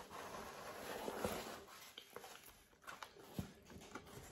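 Faint chewing of pizza, with scattered small wet mouth clicks and ticks.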